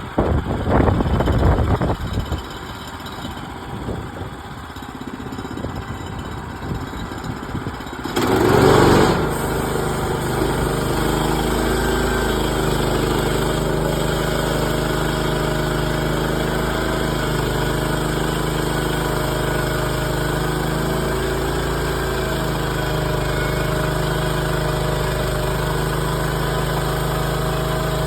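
Irregular knocks and clatter. About eight seconds in, the small gasoline engine of a Woodland Mills HM130 Max portable bandsaw mill starts with a short loud burst, then runs steadily at an even pitch.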